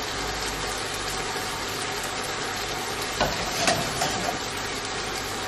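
Chicken sizzling in frying pans on a gas hob, a steady hiss, with two light knocks a little past halfway.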